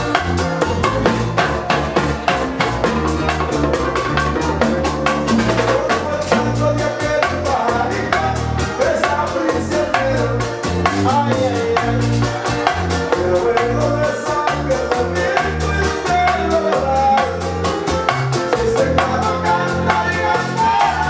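Live Latin band playing a dance song: a male lead singer over a steady, busy rhythm of drums and hand percussion, with keyboard and guitar.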